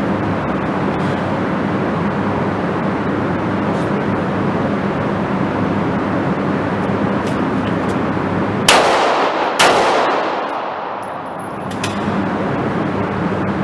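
Two handgun shots about a second apart, each ringing out after the crack, over a steady background noise; a few fainter shots sound earlier.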